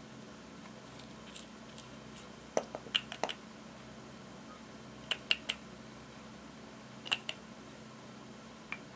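Small sharp clicks and taps from handling a glass nail polish bottle and its rhinestone-studded cap as it is unscrewed and the brush is worked, in clusters about two and a half, five and seven seconds in, with a last single click near the end. A steady faint hiss sits underneath.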